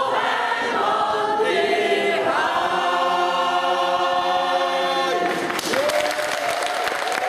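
Mixed community choir singing a cappella, ending the song on a long held chord that is cut off about five seconds in. Applause breaks out straight after.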